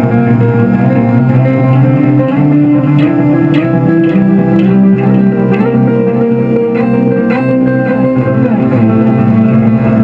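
Electric guitar played loud through a small combo amplifier: an improvised stream of held, ringing notes, with a few sharply picked notes in the middle.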